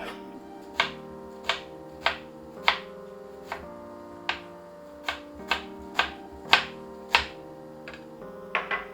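Background music of held, changing chords, with a sharp snap or knock about every half second to a second.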